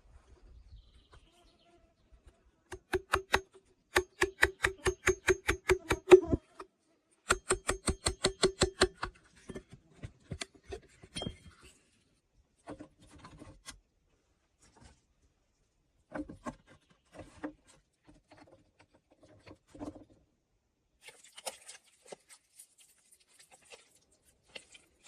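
Rapid runs of light, ringing taps, about seven a second, in three bursts, followed by scattered softer knocks and a brief scraping hiss near the end.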